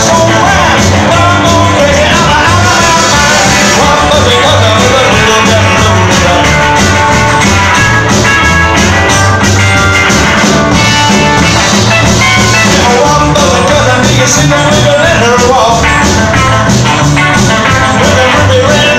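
Rockabilly band playing live: upright bass, guitars and drum kit, with a steady pulsing bass line under the guitars.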